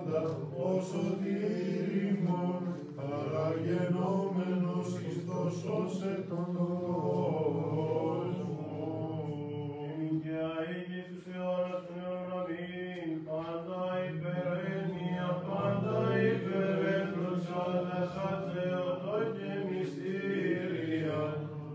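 Greek Orthodox Byzantine chant: voices sing a slow, winding melody over a steady held low note, the ison drone, without a break.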